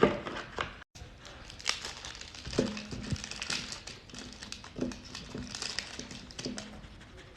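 Packaging crinkling and rustling in irregular crackles as a monkey handles and opens a gift.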